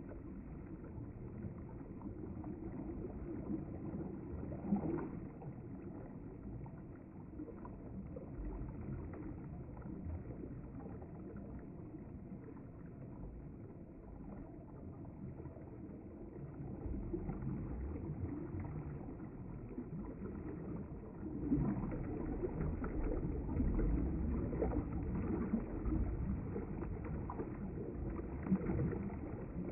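River water flowing and gurgling, a steady low rush that grows louder about two-thirds of the way through.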